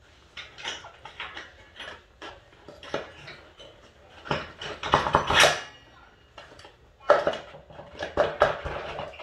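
Metal tools and rear-brake parts clinking and rattling as they are handled. There are scattered clicks, a dense flurry about halfway through, and another cluster near the end.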